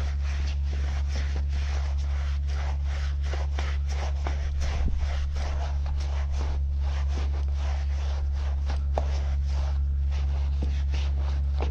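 A wheel brush scrubbing a wet, soapy steel wheel, in quick rubbing and scraping strokes several times a second, over a steady low hum.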